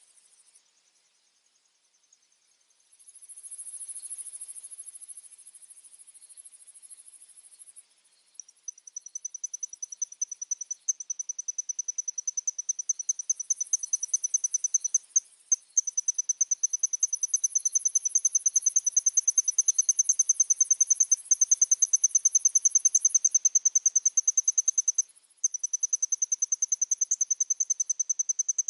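Insects trilling: a high-pitched, rapidly pulsing trill sets in about a third of the way through and carries on with a couple of brief breaks, over a fainter, higher hiss of other insects.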